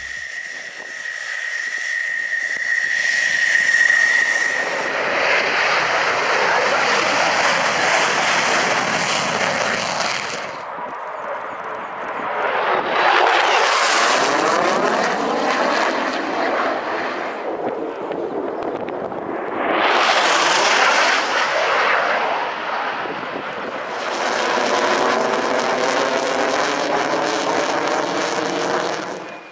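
Turkish F-16C Fighting Falcon display jet making several passes, its jet noise swelling and fading in repeated long surges. A steady high whine is heard over the first few seconds.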